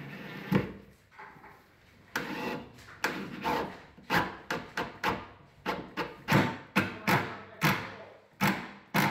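A cordless driver driving a screw through one cabinet's face frame into the next, in a run of short bursts about two a second, after a single sharp knock.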